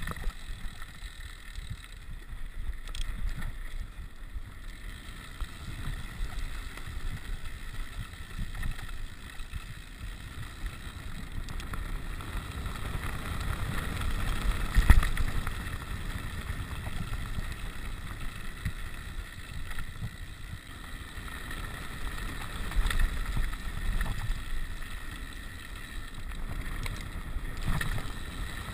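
Wind buffeting the microphone over the rumble and rattle of a rigid 29er mountain bike rolling on a rough gravel road, with scattered knocks and one hard jolt about halfway through.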